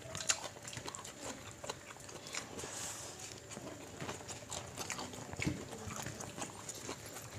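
Close-up eating sounds of people eating rice and fish with their hands: chewing and lip-smacking, heard as a run of small irregular clicks.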